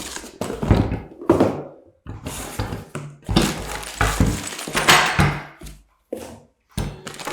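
Parts of a projector ceiling mount being handled and set down during unboxing: a series of knocks and thunks, with stretches of packaging rustling between them.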